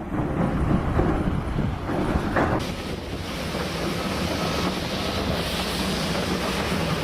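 A heavy machine's engine running steadily under wind noise on the microphone. About two and a half seconds in, a louder hiss of wind or water joins.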